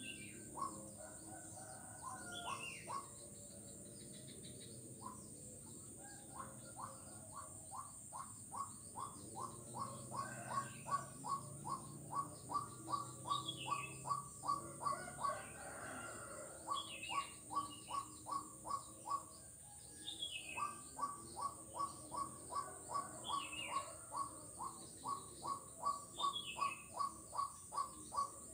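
A frog calling a long, rapid series of short, evenly spaced notes, about four a second, starting with a few scattered notes and then running steadily with two brief pauses. Short falling chirps repeat above it over a steady high insect drone.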